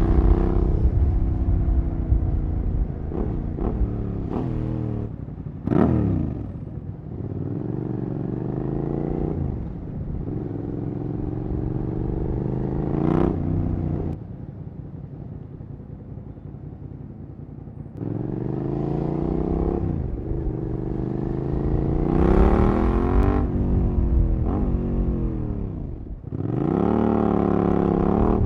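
Suzuki SV650 V-twin with a Cobra SC3 aftermarket exhaust accelerating through the gears, the pitch climbing and dropping back at each shift. It eases off to a quieter low-rev stretch around the middle, then pulls hard again through more shifts.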